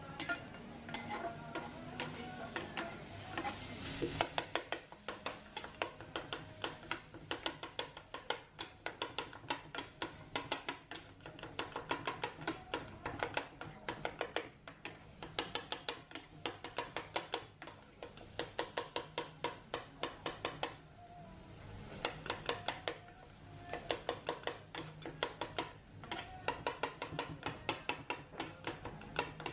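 Metal utensils clicking and scraping rapidly against a hot grill plate as kopchang (beef small intestine) is stirred and turned, with a low sizzle underneath. The clicks come in quick runs broken by short pauses.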